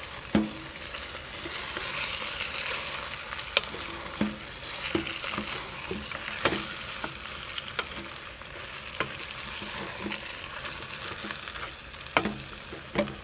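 Chopped meat, cabbage and sauerkraut sizzling as they fry in a stainless steel pot, stirred with a wooden spatula that knocks against the pot's sides at irregular moments. This is the frying-off stage before a stew is left to simmer.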